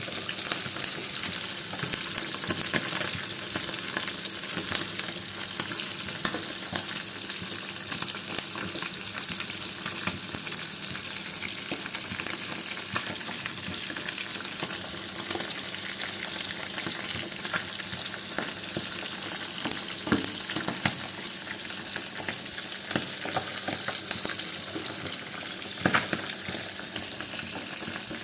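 Food frying in hot oil in a pan: a steady sizzle dotted with small crackles, with a few sharper knocks about 20 and 26 seconds in.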